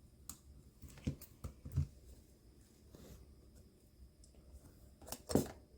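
Scattered light clicks and taps of small iPod parts and connectors being handled, a few in the first two seconds and a louder double click about five seconds in.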